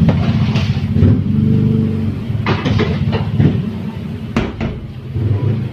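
A motor runs steadily with a low rumble throughout, under several sharp clanks of metal baking trays being handled. The clanks come about two and a half to three and a half seconds in, and the sharpest one about four and a half seconds in.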